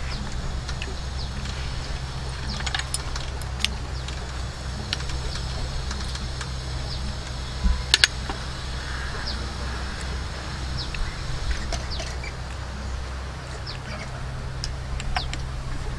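Eating curry snails: short sucking clicks and smacks as the snail meat is pulled from the shells, with one sharp clink a little before eight seconds in. A steady low hum runs underneath, and birds chirp.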